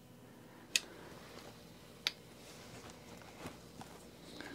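Two sharp clicks about a second and a half apart, with a few fainter ticks between, as a hand driver works out the breather bolts on a Harley-Davidson engine.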